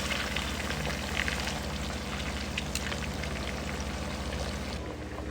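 Chicken pieces frying in hot oil: a steady sizzle with scattered sharp crackles and spits over a low hum. The sizzle drops off near the end.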